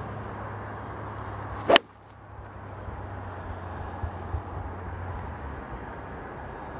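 A golf iron striking a ball off the tee: one sharp crack about two seconds in, over a steady outdoor hiss.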